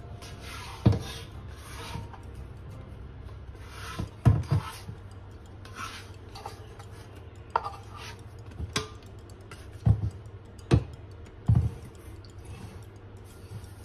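Sticky dough being scraped and worked in a stainless steel mixing bowl with a silicone spatula and bare hands: soft rubbing and scraping against the metal, broken by a handful of short, dull knocks spread through.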